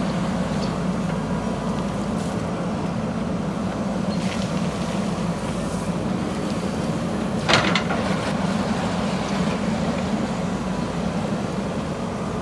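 JCB backhoe loader's diesel engine running steadily under work, with one sharp metallic clank about halfway through.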